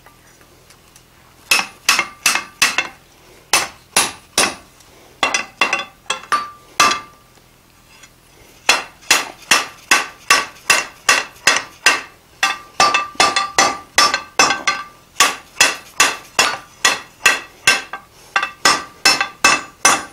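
Hand hammer striking a red-hot 5/8-inch square steel bar on the anvil to upset a square corner, each blow ringing. The blows come in short bursts at first, then in a long steady run of about two to three blows a second. Upsetting the bent corner while it is unsupported by the anvil takes many blows.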